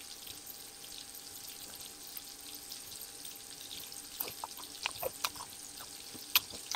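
Chicken pieces frying in oil in a pan over a camp fire: a faint steady sizzle, with a few small crackles and pops from about four seconds in.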